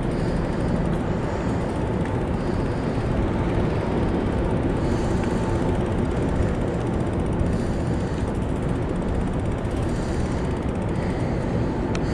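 Steady rush of wind on a chest-mounted action camera's microphone, with the rolling noise of a bicycle being ridden.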